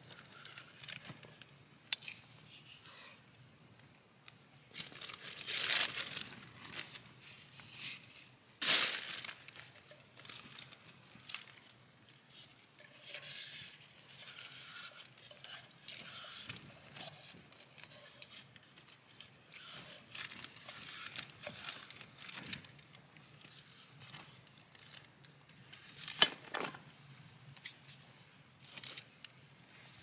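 Clear plastic bag crinkling and rustling, with a utensil scraping and clicking in a small metal camping pot. The sounds come in short, uneven bursts; the loudest are about six and nine seconds in and once near the end.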